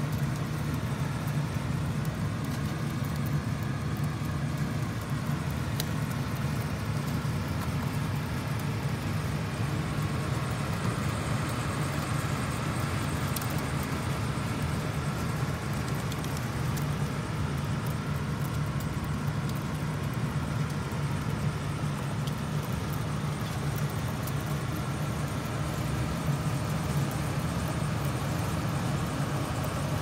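Rooftop air-conditioning unit running with a steady low hum.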